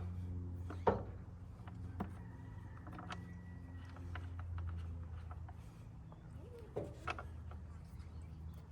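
A few sharp, irregularly spaced knocks and clicks of hand tools being handled at the wheel, over a steady low hum.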